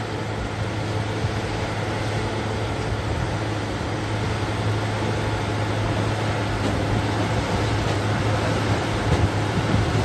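New Holland T6090 tractor's six-cylinder diesel running steadily under load while pulling a big square baler, with the baler's machinery clattering. There is a steady low drone, and a few louder low knocks come near the end.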